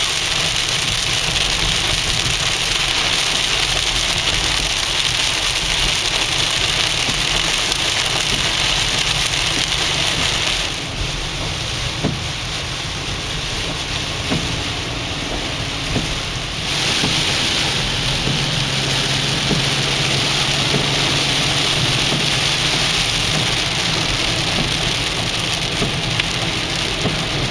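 Heavy rain pelting a moving car, a dense steady hiss over low road and engine rumble. The rain noise eases for about six seconds midway, then comes back at full strength.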